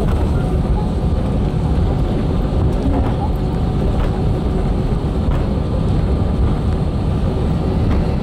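Steady low rumble inside the cabin of an Airbus A320 rolling along the runway, engine and wheel noise blended into an even roar.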